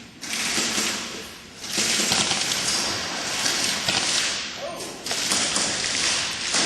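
Airsoft guns firing in three long, rapid-fire bursts, a fast clicking rattle.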